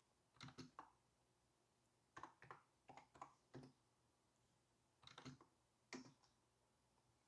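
Faint, scattered light clicks and taps in several short clusters, from a hand pushing and twisting a BLDC servo motor's arm and its aluminium load plate. Otherwise near silence.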